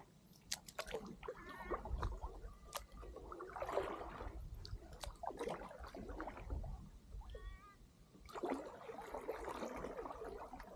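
A dog whining in short high-pitched whimpers, twice: about a second and a half in and again near seven and a half seconds, excited at seeing fish in the water. Between them are bursts of water splashing and sloshing.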